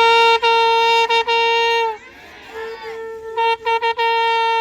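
Conch shell (shankh) being blown: a loud held horn-like note that breaks off about two seconds in. After a short pause a second blast begins with a few quick stuttered pulses and then holds steady.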